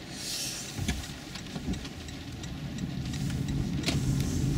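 Cabin noise inside a Toyota Prius (50-series hybrid) moving slowly on wet streets: a low road and tyre rumble that grows louder near the end as the car picks up speed, with scattered light ticks.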